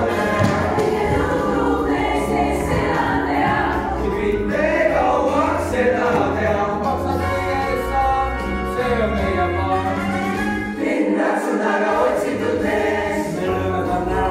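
Musical-theatre song: a group of voices singing in Estonian over instrumental accompaniment with a steady low bass, which drops out for about a second about three-quarters of the way through.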